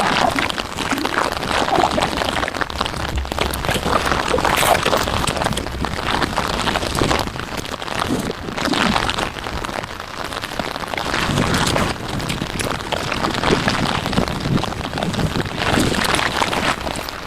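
Heavy rain falling steadily, with many close drop impacts on a surface.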